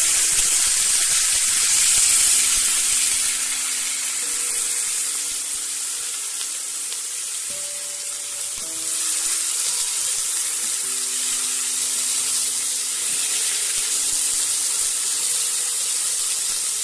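Diced potatoes frying in hot oil in a nonstick kadai with garlic, ginger and green chillies: a steady, dense sizzling hiss that eases slightly mid-way and picks up again about nine seconds in.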